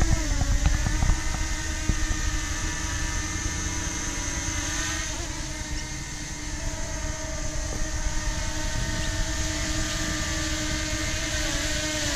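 DJI Mini 2 quadcopter hovering close by: a steady buzzing whine from its four propellers, its pitch wavering slightly as the drone holds and adjusts its position.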